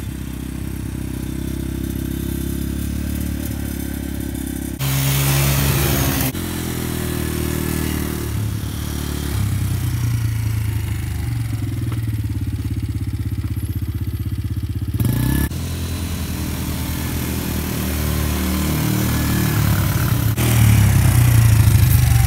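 Small youth ATV engine running at low speed, a steady putter with the pitch rising now and then. The sound changes abruptly a few times where short clips are cut together.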